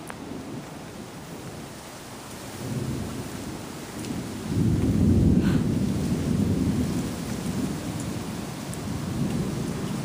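Distant thunder rumbling low. A swell builds about four and a half seconds in and slowly dies away.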